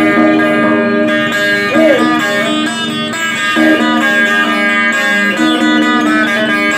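Solo guitar playing a plucked instrumental passage with no singing, one note bent in pitch about two seconds in.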